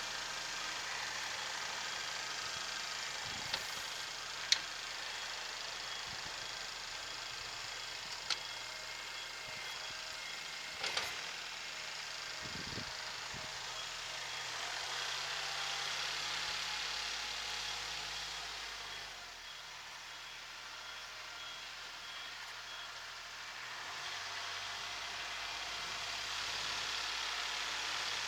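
Kubota SL28H tractor's diesel engine running steadily while working the loader, its note shifting up and down a few times as the load changes. A few sharp clicks come in the first half.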